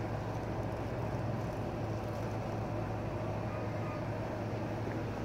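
Steady low mechanical hum with a constant low drone, like a nearby machine running without change.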